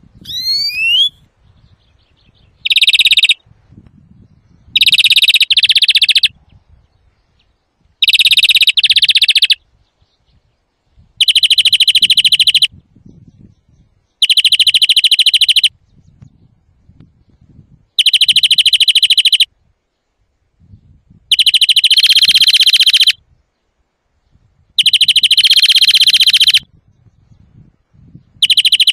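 European greenfinch calls: a quick rising whistle at the start, then a long buzzy wheeze repeated about every three seconds, loud and nearly identical each time.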